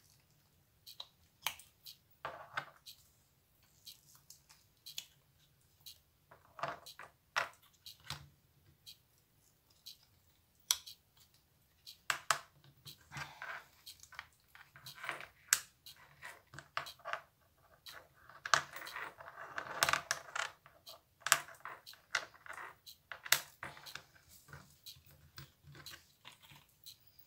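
Cured epoxy resin pieces being pushed out of flexible silicone molds and set down on a cutting mat: scattered light clicks and taps, with a few stretches of rustling handling noise.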